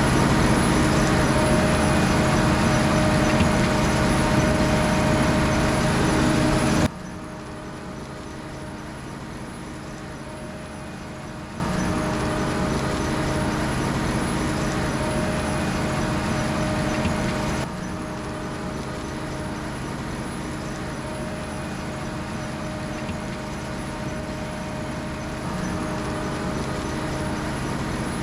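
Potato harvesting machinery running steadily: engines and harvester mechanism with a constant hum. The sound drops abruptly about 7 seconds in, comes back louder about 12 seconds in, and drops again a little about 18 seconds in.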